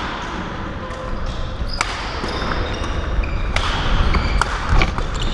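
Badminton rally in a sports hall: rackets striking the shuttlecock in several sharp cracks, with short squeaks of court shoes on the floor over a steady low hum of the hall.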